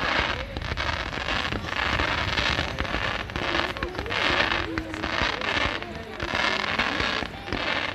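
Fireworks display: aerial shells bursting in a rapid, continuous run, about two bangs a second, with crackling between them.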